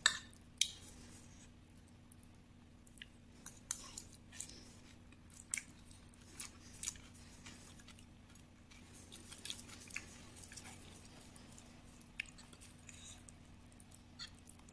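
Mukbang eating sounds: a metal spoon clicking and scraping against a ceramic plate while someone chews rice and kerupuk crackers. These come as irregular short clicks, the loudest right at the start and about half a second in, over a faint steady hum.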